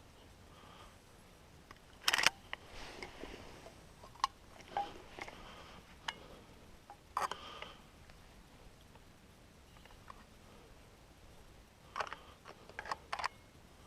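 Scattered sharp clicks and small knocks close to the microphone, with faint rustling between them, as gear or clothing is handled. The loudest click comes about two seconds in, another about seven seconds in, and a quick cluster near the end.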